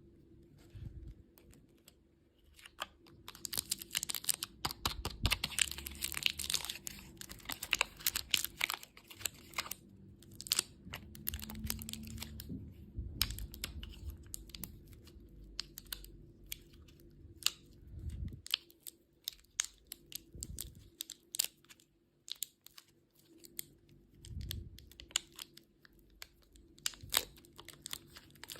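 Candy packaging being handled and opened: plastic wrappers crinkling and tearing, with many small clicks and taps, densest in the first third and sparser after.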